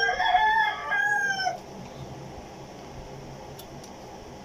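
A rooster crowing once: a single loud call of about a second and a half that rises at the start and drops away at the end.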